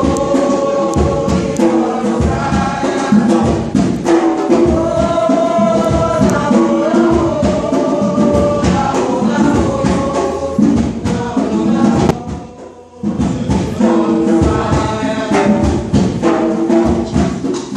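A group of stage actors singing together, live in a hall, with sharp percussive hits mixed in. The singing drops away briefly about twelve seconds in, then starts again.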